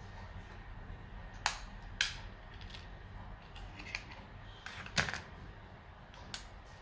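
Sharp, scattered clicks and snaps of small plastic parts and tools while a Samsung A720 phone's clipped-in internal parts are pried out, about four loud clicks among fainter ticks, over a faint steady hum.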